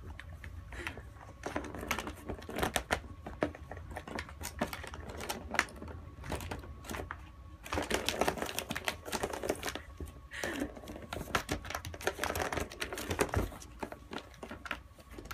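Rapid, irregular plastic clicking and rattling from a cat's red circular track-ball toy as the cat paws at it and rolls around in the track, busiest in two stretches in the second half.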